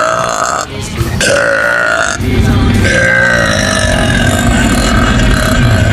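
A woman's deep, loud burps, long and drawn out, coming one after another with brief breaks about a second and about two seconds in.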